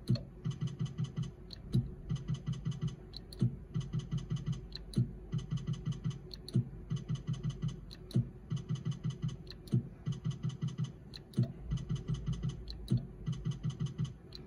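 Bar video slot machine spinning over and over: each spin is a sharp click followed by a fast, even run of electronic ticks while the reels turn, repeating about every second and a half.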